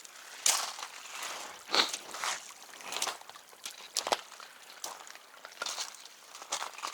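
Footsteps on the wet sand and gravel of a creek bed, irregular steps about once a second.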